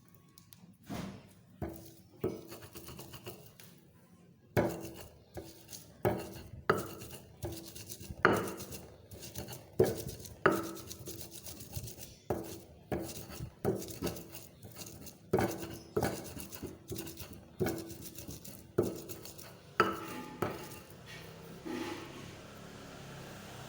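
Leaves being crushed with a pestle in a mortar (ulekan): a steady run of sharp knocks, about one every two-thirds of a second, each followed by a short ringing tone. The knocks are lighter at first and fade out near the end.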